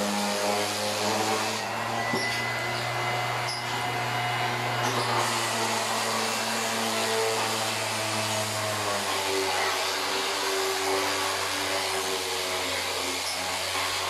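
Corded electric orbital sander running steadily while sanding a woven bamboo panel, a constant motor hum with a scratchy sanding noise. Its hum shifts a little about nine seconds in.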